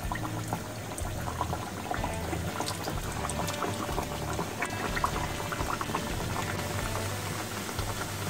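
Khaja dough pastries deep-frying in hot refined oil: a steady bubbling sizzle full of small, irregular crackles.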